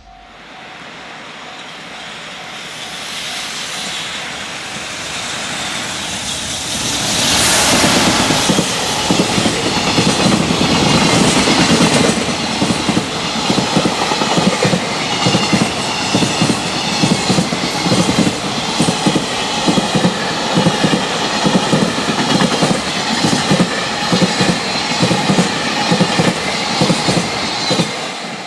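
Electric freight train passing at high speed. Its sound builds for several seconds until the locomotive passes loudly, with traction motor whine, about seven seconds in. After that the wagons' wheels clatter over the rail joints in a fast, steady rhythm.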